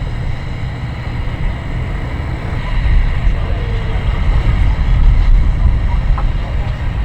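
Boat motor running under power with a low rumble as the boat is driven up onto its trailer at the ramp, growing louder about three seconds in.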